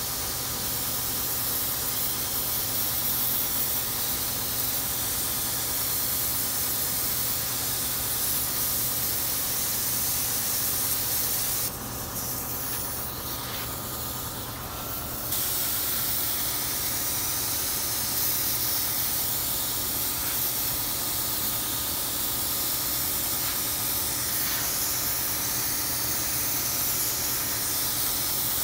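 Steady hiss of a Craftsman air spray gun spraying thinned white pre-catalyzed lacquer onto a maple cabinet door, with the air valve choked nearly shut for shading. The hiss drops off for about three seconds near the middle, then resumes, over a steady low hum.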